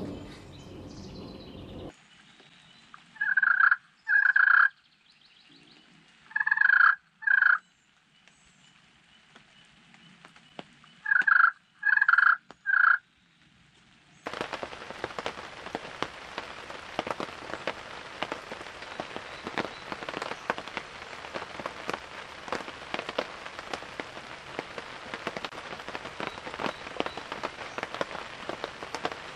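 Wild turkey gobbler gobbling, three bouts of two or three gobbles each. About fourteen seconds in, steady rain takes over, with many small drop hits.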